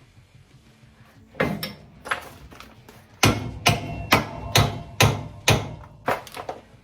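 Hammer blows on a part, a couple of strikes a little over a second in, then a steady run of about two strikes a second until near the end.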